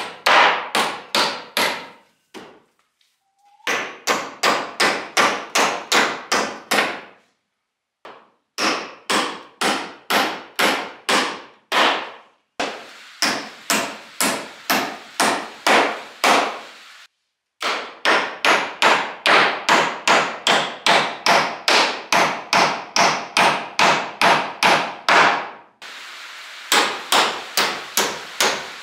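Claw hammer driving nails into reclaimed wooden wall boards: quick series of blows, about four a second, in several runs broken by short pauses. Near the end, a steady hiss of light rain on a metal roof runs under the hammering.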